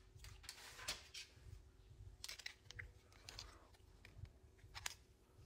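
Near silence with a few faint clicks and short rustles of handling, as of a phone and a small plastic case being moved.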